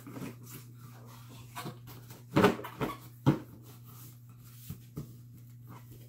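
Cardboard box being handled and pulled open: scattered short rustles and knocks, with three louder scrapes about halfway through, over a steady low hum.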